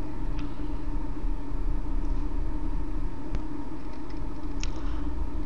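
Steady low mechanical hum with a faint constant tone, and a few faint clicks scattered through it.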